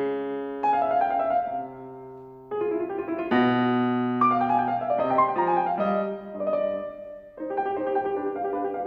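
Concert grand piano played solo in a classical piece: runs of notes and held chords that die away, with brief lulls about two and a half seconds in and again about seven seconds in before the playing picks up.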